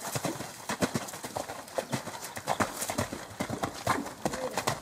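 Horse's hooves cantering on soggy, wet sand arena footing: a continuous run of hoofbeats.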